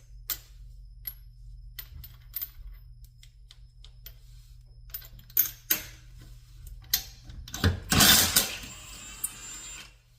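Metal hand tools clicking and clinking at a car wheel while the center cap and lug nuts are being worked off, with a louder, longer noisy burst about eight seconds in.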